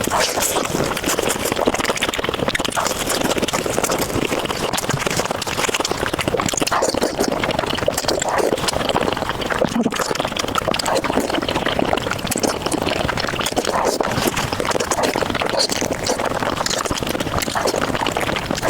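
Close-miked mukbang eating sounds: slurping and chewing spicy noodles, a dense run of wet clicks and smacks.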